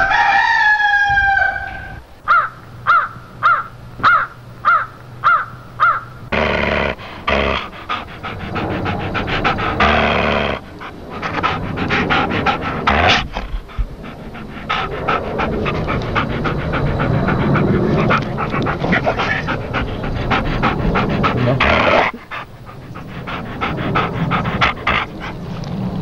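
Animal calls: one long call falling in pitch at the start, then about eight short calls in quick succession, about two a second, followed by a long, noisy jumble of animal sounds.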